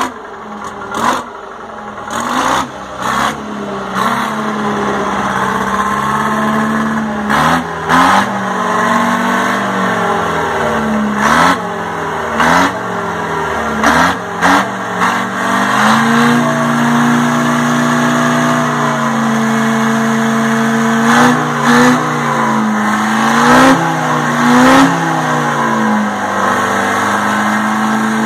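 Detroit Diesel 4-71 two-stroke four-cylinder diesel engine running just after being started, after years of sitting. It is revved up in short blips again and again, dropping back to a steady idle between them, with a longer steady idle a little past the middle.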